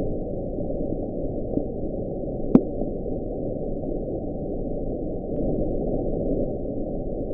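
Muffled, low-pitched underwater recording: a steady rumbling hiss with a sharp click about two and a half seconds in and a few faint short rising sweeps.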